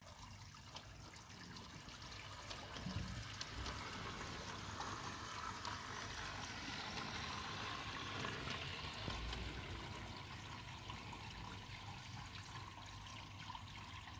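Steady trickling water, with a Bachmann G scale open street car's electric motor and wheels on the track swelling as it passes close, loudest around the middle.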